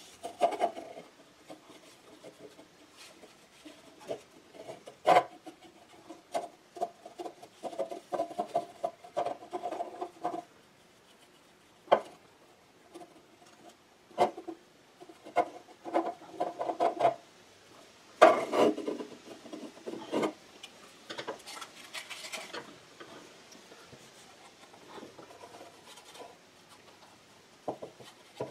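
Paintbrush scrubbing paint onto a small wooden model boat hull: irregular rubbing strokes and light taps of the brush against the wood, busiest about five seconds in and again around eighteen to twenty seconds.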